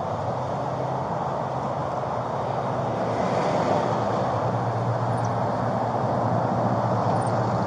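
Steady outdoor vehicle noise: a low engine hum under a wash of traffic noise, growing a little louder about halfway through.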